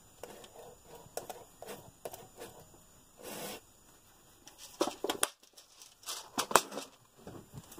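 Small plastic and metal parts of an RC buggy's rear suspension being handled and fitted: scattered light clicks, a brief rustle about a third of the way in, and a few sharper clicks in the second half.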